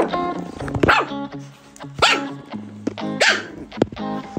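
Background music with a steady low note and a tune, over a dog barking about once a second, each bark rising and falling in pitch.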